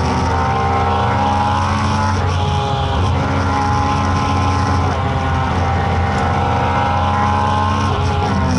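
The 2.4-litre V8 of a race-modified Subaru BRZ, heard from inside the cabin, running hard at high revs under load on track. The note breaks briefly about two seconds in, climbs slowly again, then drops in pitch near the end.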